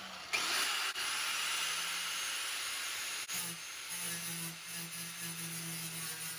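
Angle grinder grinding down fresh weld beads on the patched sheet-steel floor pan of a Nissan 240SX, a steady hissing rush that starts just after the opening and dips briefly a little past halfway.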